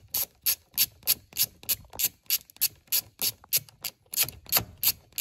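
Socket ratchet clicking steadily, about three clicks a second, as it backs out the 10 mm bolt that holds the steering-wheel airbag.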